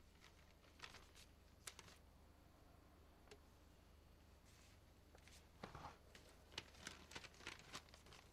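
Near silence: faint room tone with soft, crisp rustles of a paper document being handed over and handled. The rustles come more often in the last few seconds.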